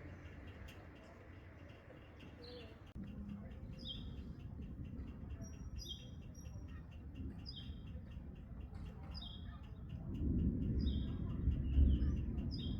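A bird calling over and over, a short falling chirp about once a second, over a steady low background. Near the end a low rumble swells up under the calls.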